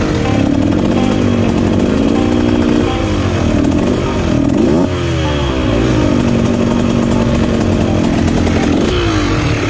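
Enduro dirt bike engine heard from on the bike, revving up and down with the throttle while riding slowly over rocks, with a quick rise in revs about five seconds in, a steadier stretch after, and another rise near the end.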